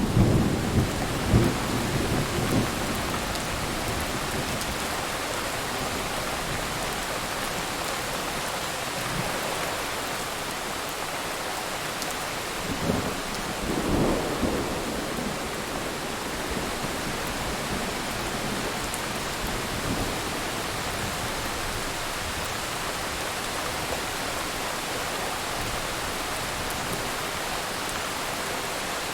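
Thunderstorm: steady rain hissing throughout, with thunder rumbling low. One rumble trails off over the first few seconds, and a shorter one comes about halfway through.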